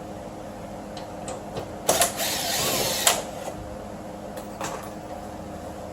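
A small power driver whirs for about a second, backing out the fastener that holds the window glass to the regulator, with a sharp click as it starts and stops and a few lighter clicks around it.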